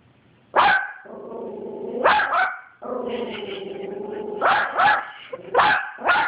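Yorkshire terrier barking at a dog on television, with about seven sharp barks, some in quick pairs. A steady, held growl fills the gaps between the barks.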